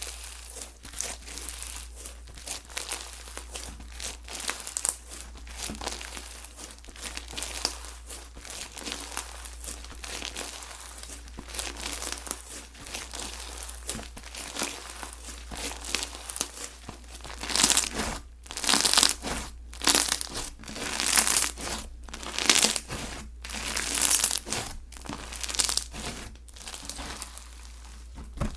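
Slime being squeezed and stretched by hand, giving a steady crackle of tiny pops. In the second half the handling turns into louder, longer squishes about once a second.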